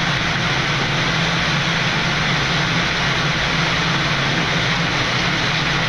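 Steady rush of airflow and engine noise on the flight deck of a Boeing 787 on short final, with a constant low hum under it.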